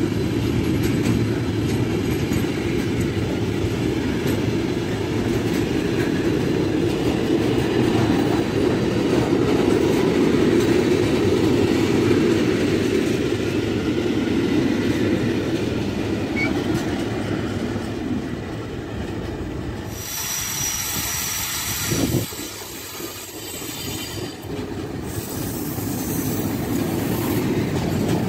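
Train rolling past on the rails: a steady, loud rumble of wheels and wagons. About twenty seconds in it drops and turns hissier, with a single sharp knock shortly after, then builds again near the end.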